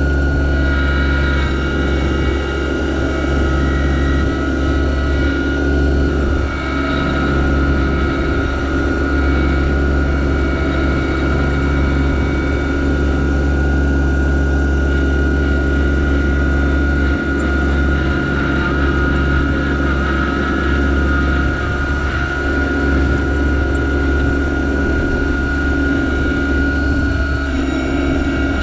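Yanmar SA324 compact tractor's three-cylinder diesel engine running steadily under load, with a steady high whine over it.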